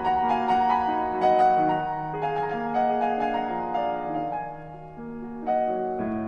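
Background piano music: a slow melody of single sustained notes over held chords, dipping quieter about five seconds in before new notes enter.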